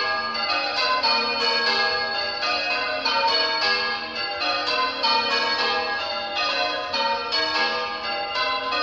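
Church tower bells being rung in changes: a steady, even run of bell strikes, one after another, each ringing on into the next.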